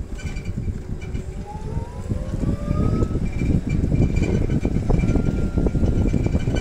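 Forklift running, heard from the driver's seat: a whine rises steadily in pitch over the first three seconds as it speeds up. It then runs loudly and steadily with a clattering, uneven low noise as it drives.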